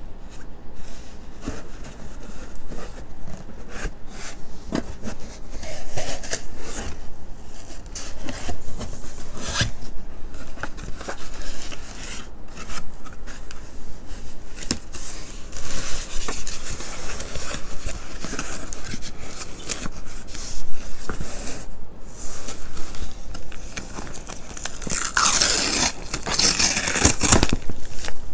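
Cardboard shipping box and packaging being handled: flaps scraping and rubbing, with scattered knocks and clicks as the boxed iPad is slid out. Near the end a clear plastic bag crinkles loudly for a couple of seconds.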